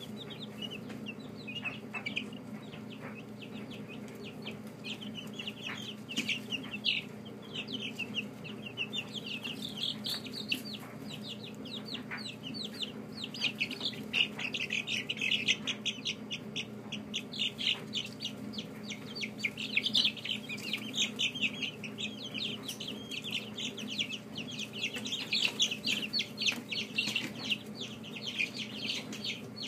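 A brood of young chicks peeping, many short high chirps overlapping, sparse at first and growing busier after the first several seconds, over a steady low hum.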